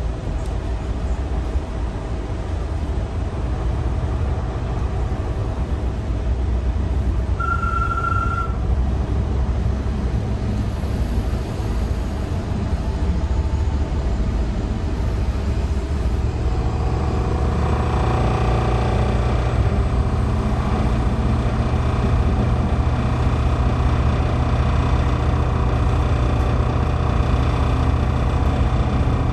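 Stadler FLIRT diesel multiple unit in motion: a steady low rumble of the train running on the track. A short high beep sounds about a quarter of the way in, and from about halfway the running noise grows, with steady whining tones over the rumble.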